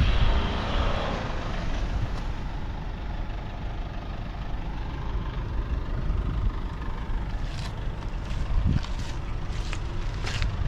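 A vehicle engine running steadily with a low rumble, with a few sharp clicks in the later seconds.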